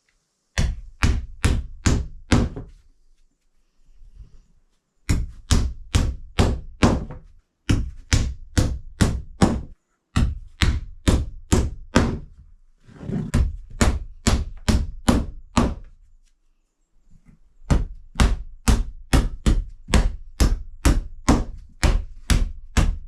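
Hammer driving nails into the wooden framing of a plywood door, struck about three times a second in runs of five to seven blows, with short pauses between runs. The last run is longer and unbroken.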